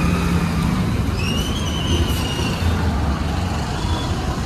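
Steady motor-vehicle rumble with a brief high-pitched squeal that rises and fades between about one and two and a half seconds in.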